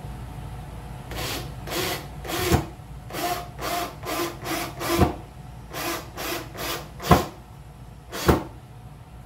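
Short rubbing strokes of a hand tool on a wooden door, about two to three a second, in runs that each end with a sharp knock, four knocks in all.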